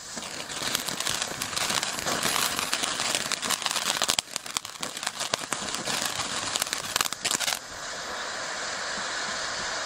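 Bad Bat firework fountain burning. A dense crackling of popping sparks gives way, about seven and a half seconds in, to a smoother, steady spraying hiss.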